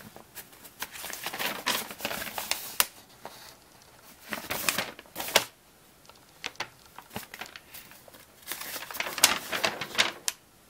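Plastic parts bag crinkling and paper rustling as kit parts and instructions are handled, in irregular bursts with sharp little clicks, quieter for a couple of seconds in the middle.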